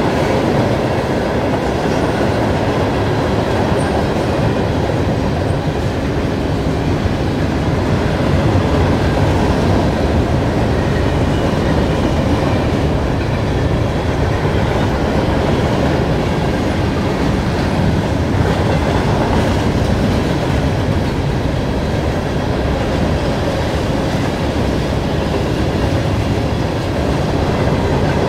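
Freight train cars (gondolas, tank cars and boxcars) rolling past at steady speed: the continuous rumble and clatter of steel wheels on the rails, holding the same level throughout.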